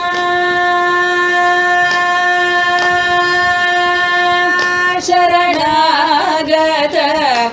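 A woman singing Carnatic music in raga Reetigowla. She holds one long, steady note for about four and a half seconds, then moves into a phrase of wavering gamaka ornaments.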